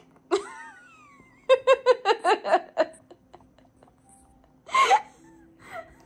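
High-pitched laughter: a short laugh just after the start, a quick run of giggles from about a second and a half in, and another burst of laughter near the end.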